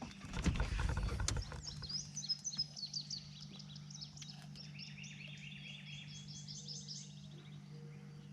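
Rapid, repeated chirping calls of birds and insects over a steady low hum, with knocking and rustling handling noise and a few sharp clicks in the first three seconds.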